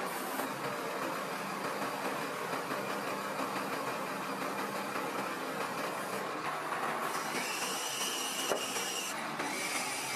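Sinotruk Howo crane truck's engine and hydraulics running steadily as a hydraulic stabilizer leg is lowered to the ground. A thin high whine comes in about seven seconds in and drops a little in pitch just before the end.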